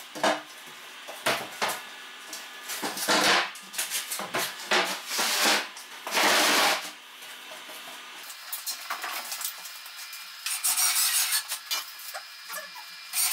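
A large plywood sheet being handled onto a steel frame: a series of irregular scrapes and knocks of wood sliding and bumping on metal.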